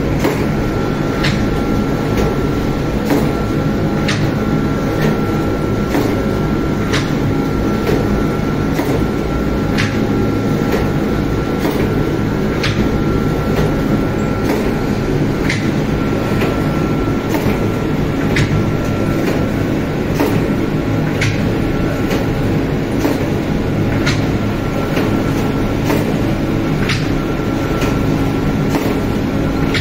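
Automatic lavash bread oven and conveyor running steadily: a low mechanical hum with a faint high whine, and a sharp click about once a second.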